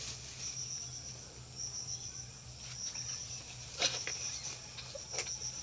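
Insects chirring in a high, pulsing drone, over a faint low steady hum, with two sharp clicks about four and five seconds in.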